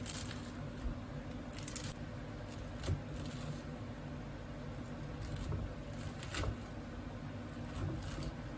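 A few soft clicks and scrapes from objects being handled, scattered over a steady low hum.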